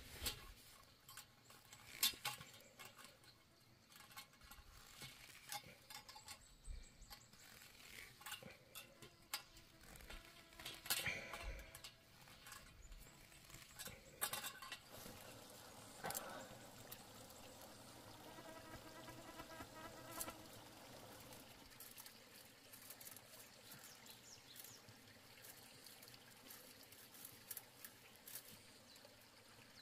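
Faint scattered clicks and rattles of galvanised wire and chain-link mesh as tie wire is twisted onto a steel fence post with pliers.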